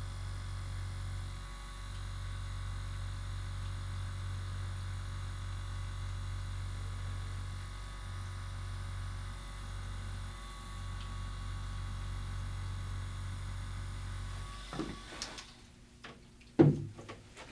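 Handheld percussion massager running with a steady low hum as it works the upper trapezius muscle, easing off briefly a few times. It shuts off about 14 seconds in, followed by a few clicks and knocks, the loudest near the end.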